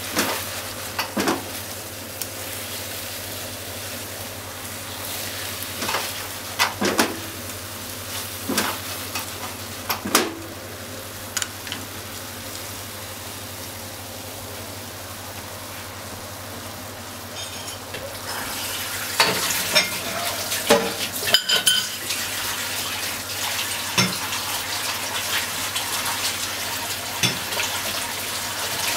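Deep-fried tofu and green onions sizzling in a frying pan in a seasoning sauce, with scattered clinks and knocks against the pan, more of them in a cluster past the middle.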